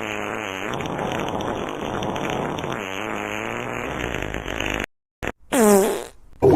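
Fart sounds: one long, wavering fart lasting about five seconds that cuts off abruptly, then a tiny blip and a shorter fart with a sliding pitch near the end.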